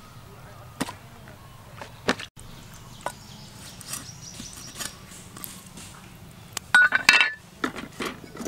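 Kitchen knife tapping and cutting against a wooden chopping block as raw pork large intestine is sliced: scattered sharp taps, with a cluster of louder metallic clinks about seven seconds in.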